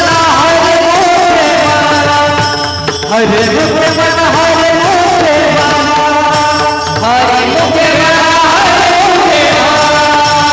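Devotional kirtan music: an ornamented melody of long held notes with gliding turns over steady sustained tones, pausing briefly about three seconds in and again about seven seconds in.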